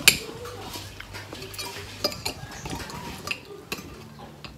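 Spoons and forks clinking against glass bowls and plates during a meal: scattered sharp clinks, the loudest right at the start.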